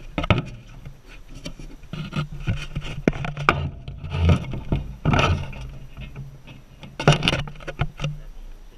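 Handling noises: a run of knocks, clatters and scrapes as objects are set down and picked up, with louder clusters at several points, over a low steady hum that stops shortly before the end.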